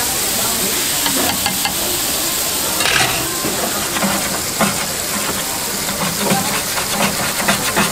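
Blocks of margarine melting and sizzling in a hot griddle tray of foaming fat: a steady hiss with dense popping and crackling.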